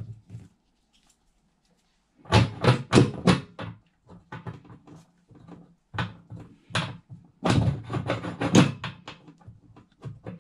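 Short clusters of knocks and rustles from hands working close at a threaded pipe fitting, winding PTFE tape onto its threads. The knocks come in bunches about two seconds in, around six to seven seconds, and again near the end.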